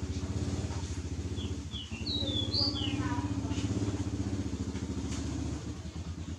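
A vehicle engine running steadily with a fast low pulse, dropping off about five and a half seconds in. Birds chirp briefly over it in the middle.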